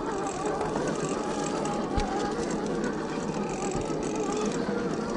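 Axial SCX10 II RC crawler's 550-size 21-turn electric motor and gear drivetrain whining steadily as it climbs a dirt trail. There is a single knock about two seconds in.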